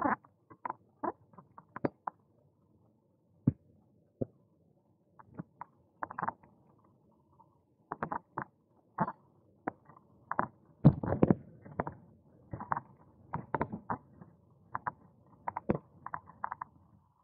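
Irregular clicks, creaks and rattles from a bicycle being ridden over the road surface, with one louder knock about eleven seconds in.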